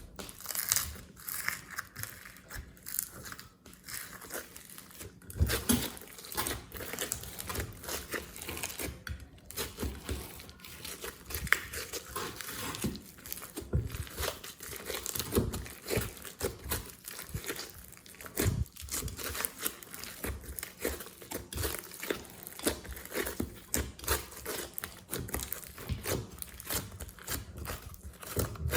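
Glossy slime being squeezed, stretched and kneaded by hand, giving a dense, irregular run of small wet clicks and pops.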